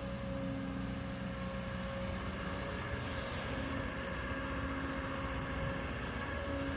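Kobelco excavator's diesel engine running steadily under work, a constant low drone with a held pitch.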